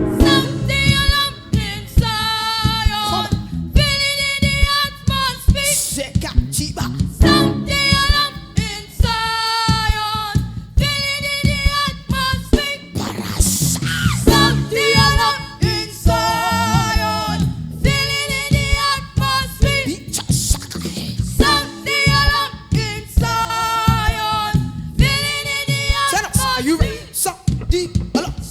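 Gospel worship singers performing a song over instrumental backing with a steady beat.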